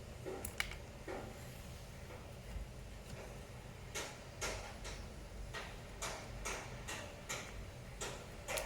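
A string of light, sharp clicks and ticks, about two a second and somewhat uneven, from small parts or a tool being handled on a laptop under repair, over a low steady hum.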